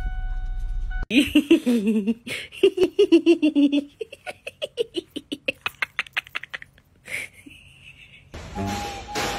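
A person laughing hard in quick repeated bursts that trail off after several seconds, over a steady low hum at the start; music comes in near the end.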